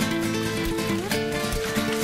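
Music: acoustic guitar playing a flamenco-style melody, with one note sliding upward about halfway through.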